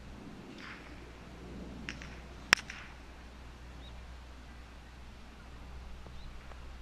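A wooden park golf club striking the plastic ball once, a single sharp knock about two and a half seconds in, with a fainter click just before it.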